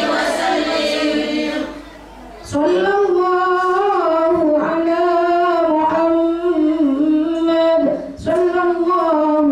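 Women singing an Islamic devotional chant with a microphone. A group sings together at first; after a short pause about two seconds in, one woman's amplified voice leads the melody in long, held, wavering notes.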